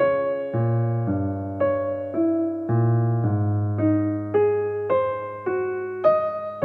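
Background piano music: a slow melody of struck notes, about two a second, each fading away, over held low bass notes.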